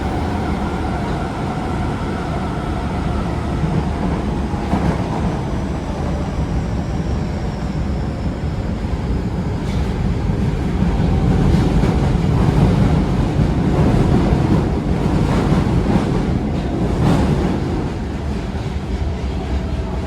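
Osaka Metro 22 series subway train running underground, heard from on board. A heavy rumble of wheels and motors carries faint GTO-VVVF inverter tones that slowly fall in pitch, with a few knocks from the wheels on the rails.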